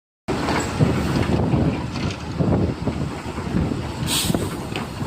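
Heavy diesel machinery working, a loud uneven low engine rumble, with a short hiss about four seconds in.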